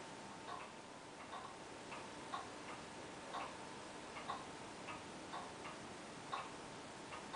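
Mechanical clock ticking faintly and steadily, with a stronger tick about once a second and softer ticks between, over a faint steady hum.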